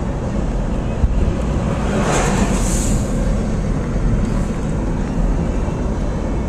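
Motorboat engine running steadily under way, a low rumble mixed with wind buffeting the microphone, with a brief hiss about two seconds in.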